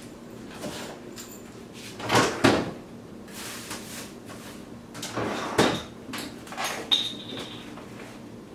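Refrigerator door being opened and things moved about inside it: a few separate knocks and rattles, the loudest about two and five and a half seconds in.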